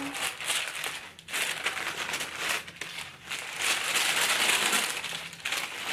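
White tissue paper in a shoe box crinkling and rustling as it is pulled back and lifted out by hand. It pauses briefly after about a second and is loudest around four to five seconds in.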